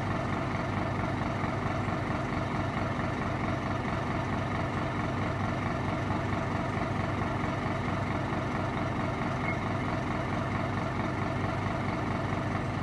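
Multirotor drone's motors and propellers whirring at a steady pitch throughout, with no change in speed.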